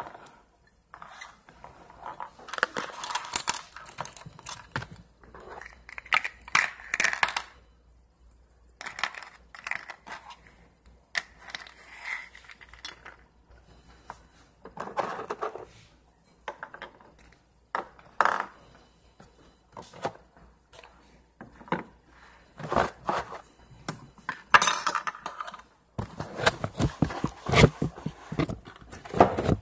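Small plastic slime tubs and lids being handled, giving irregular clicks, taps and crackles in bursts with short pauses between them.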